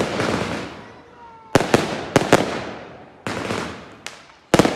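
Aerial fireworks shells bursting overhead: a rapid series of sharp bangs, several in quick pairs, each followed by a long fading rumble and echo.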